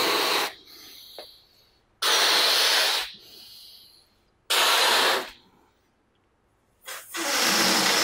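Breaths blown into a rubber balloon to inflate it: three hard puffs of about a second each, each followed by a softer trailing hiss. About seven seconds in, air starts rushing back out through the balloon's neck with a low buzz as it deflates.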